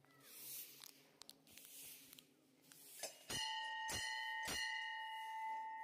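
Temple bell struck three times in quick succession starting about three seconds in, its ringing holding a steady tone after the strikes.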